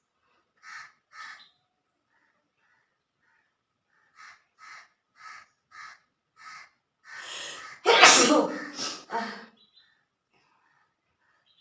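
A woman's forced sneeze, brought on by tickling her nose with a blade of green grass while she has no cold. A string of short breathy sniffs builds into a drawn-in breath, then one loud sneeze about eight seconds in, trailing off in two shorter bursts.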